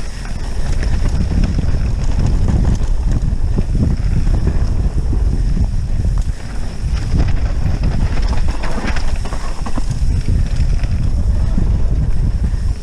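Wind buffeting the microphone of a camera on a mountain bike descending a dirt trail at speed, under a steady rumble of knobby tyres rolling over dirt and leaves. The bike clatters and knocks as it goes over bumps.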